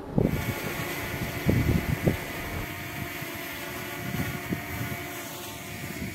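Wind buffeting the microphone in a few low gusts, over a steady mechanical hum made of several fixed tones.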